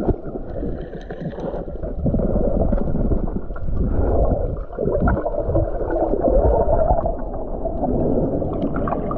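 Seawater surging and gurgling, heard from underwater: a dull, muffled rush that swells and eases every second or two.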